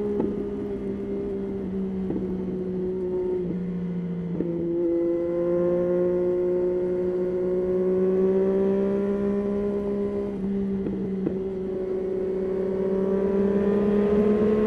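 Yamaha Tracer 9 inline three-cylinder engine running under way at a steady pace. Its pitch dips briefly about four seconds in, then climbs slowly.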